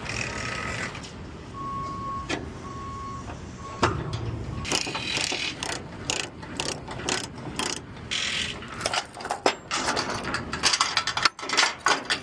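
Truck running with a steady low rumble, a few short beeps of the same pitch about two seconds in, then a long run of sharp clicks and knocks.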